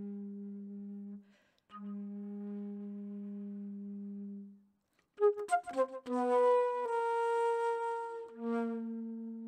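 Flute playing: a low held note, briefly broken and taken up again. After a short pause comes a quick flurry of short notes with sharp attacks, then longer held notes, and another low held note near the end.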